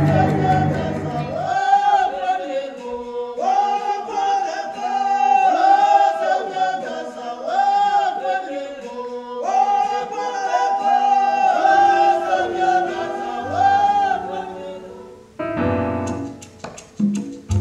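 Stage-performance music from a montage: bass-heavy band music briefly, then a group of voices singing a short rising-and-falling phrase over and over with little or no accompaniment, then a different piece of music near the end.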